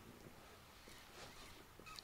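Near silence: faint room-less ambience with no distinct sound.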